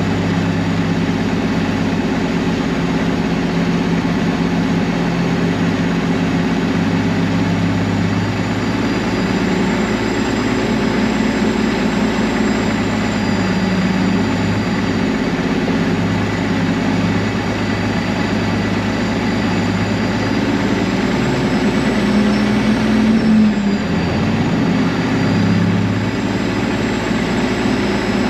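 Heavy diesel truck engine running, its pitch stepping up and down at times, with a faint high whine above it.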